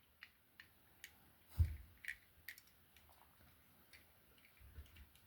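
Faint, scattered clicks and light taps of a small die-cast model car and a Dremel tool being handled, with one duller knock about a second and a half in.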